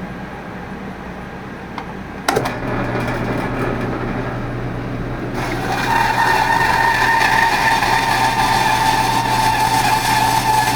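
Electric drill starting up about two seconds in, then, a few seconds later, its oiled bit biting into metal to cut a hole, a steady high-pitched grinding whine.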